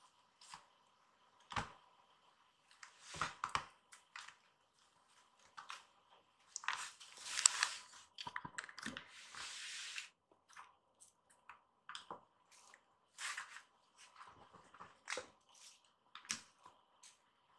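A kitten's paws scuffling and tapping on tatami mats as it pounces on and bats a cloth ball toy on a string: irregular soft taps and rustles, with a louder stretch of scrabbling in the middle.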